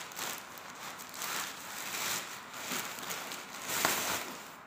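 Black plastic bag rustling and crinkling as a shoebox is pulled out of it, with a louder crackle about four seconds in.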